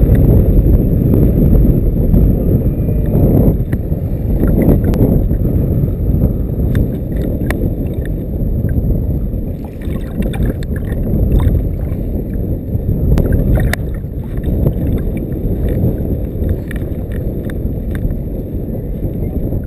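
Strong wind buffeting an action camera's microphone, heard as a loud, low rumble that swells and drops with the gusts. Scattered light clicks come through it, most of them in the second half.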